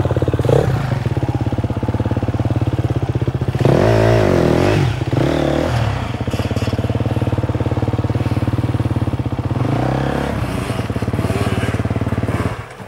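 Dirt bike engines running as riders climb a rocky trail, revving up and down about 4 seconds in and again near 10 seconds as one bike passes close by. The sound cuts off abruptly just before the end.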